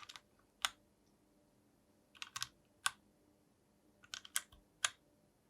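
Typing on a mechanical keyboard with factory-lubed Gateron INK v2 Black linear switches, BOW PBT Cherry-profile keycaps and a brass plate. The keystrokes come in three short runs of a few quick strokes, each followed by a single louder stroke.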